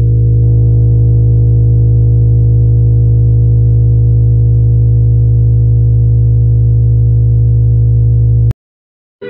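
A loud, steady low electronic drone with a stack of overtones, presented as the 'sound' of Oberon, a moon of Uranus. It grows slightly brighter about half a second in and cuts off abruptly about a second before the end.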